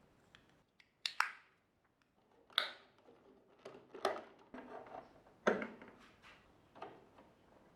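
Plastic parts of a Nespresso DeLonghi capsule machine clicking and knocking as they are handled and fitted back together, about seven short, irregular knocks and clicks, a couple with a brief scraping tail.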